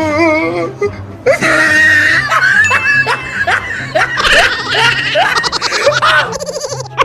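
Hearty laughter in repeated 'ha-ha' bursts, quickening near the end, over background music with a steady beat.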